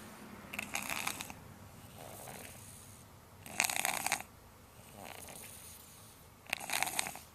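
Someone asleep snoring: three loud, breathy snores about three seconds apart, with softer breaths between them.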